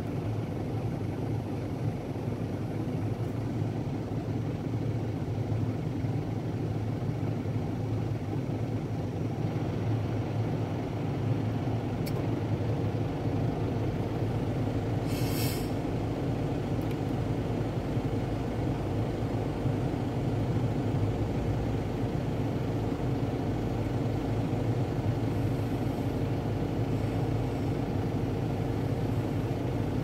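Steady low mechanical hum, with a short hiss about fifteen seconds in.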